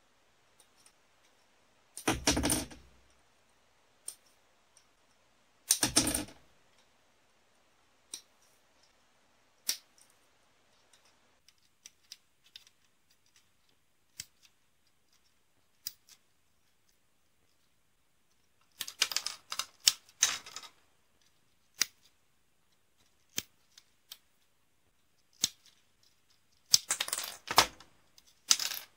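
Hard plastic model-kit runners (sprues) handled and knocking together, with parts snipped off them by side cutters: sharp plastic clicks and clatter. There are two loud clattering bursts in the first six seconds, scattered single ticks, then two longer bouts of rattling in the second half.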